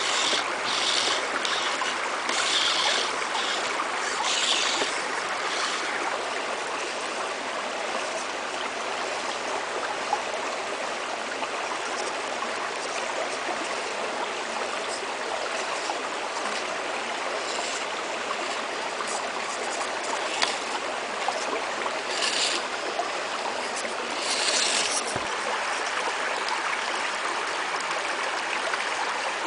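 Steady rush of a stream flowing over a rocky riverbed, with a few brief higher hissy bursts near the start and about two-thirds of the way through.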